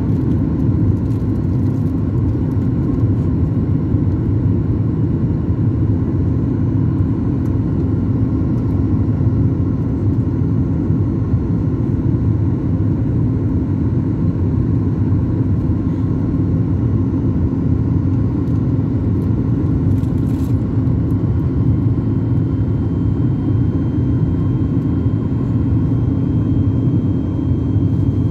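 Steady low rumble of engine and airflow heard inside the passenger cabin of a Boeing 737 MAX 8, with its CFM LEAP-1B turbofans running at an even setting and a hum held on one note.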